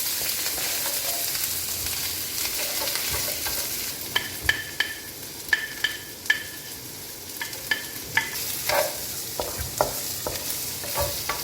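Onion, ginger and garlic sizzling in hot oil in a pan as they are stirred. The sizzle eases after a few seconds, and a utensil then clicks and clinks against the pan many times, some strikes ringing briefly.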